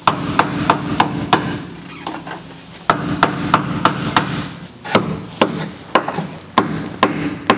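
Hammer blows on the rusted sheet-steel floor pan of a Geo Tracker, about three sharp strikes a second, in runs with short pauses between them. The blows are knocking the cut section loose from its drilled-out spot welds.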